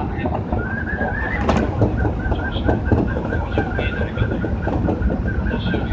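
Osaka Metro 22 series subway train running, heard from inside the car: a low rumble with scattered clicks and knocks, and a high whine that comes in about half a second in, rises briefly, then holds steady with a wavering pulse.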